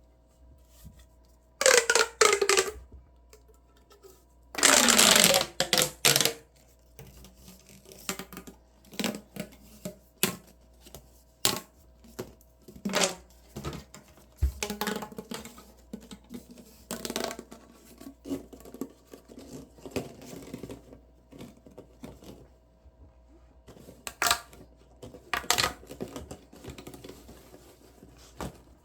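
Plastic pop tubes (ribbed, stretchy fidget tubes) being pulled and squeezed, their ribs snapping with crackling clicks and pops. Two long, loud stretches come near the start, falling in pitch, followed by many shorter scattered clicks and pops.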